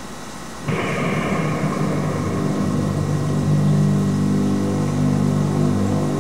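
A loud, low, steady droning sound with several held tones starts suddenly about a second in and keeps going, its brighter upper part fading over the next couple of seconds.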